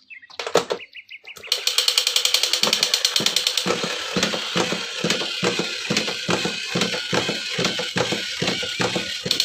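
A battery-operated toy running: rapid mechanical clicking, about five clicks a second, with a steady high electronic tone. It starts about a second and a half in, after a few handling clicks.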